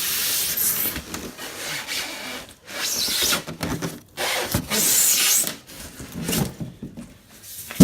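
Polystyrene foam packing being lifted out of a cardboard box, rubbing and scraping against the cardboard in several bursts, with a sharp knock at the very end.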